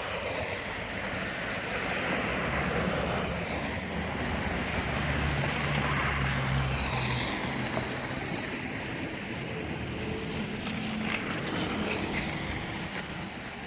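Wind rushing over the microphone, with a low engine hum coming in for a couple of seconds in the middle.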